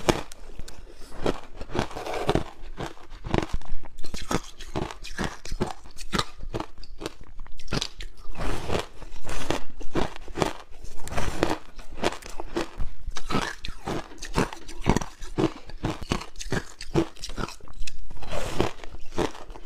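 Frozen passion fruit ice being bitten and chewed close to the microphone, with dense, irregular crunching and crackling.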